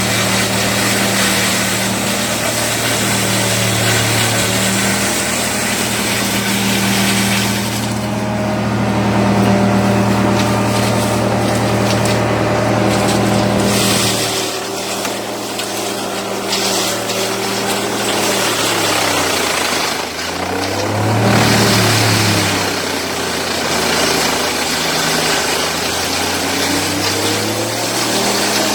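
Wood chipper running with a steady engine hum under a constant rushing, grinding noise. About 20 s in, the engine pitch dips and then climbs back.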